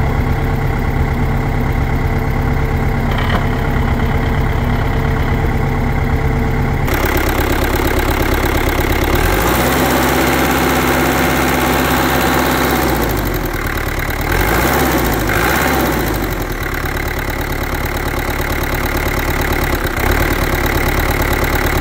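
2004 New Holland TN90F tractor's turbo diesel engine idling steadily. About seven seconds in, the sound suddenly turns fuller and brighter, as heard up close at the open engine bay.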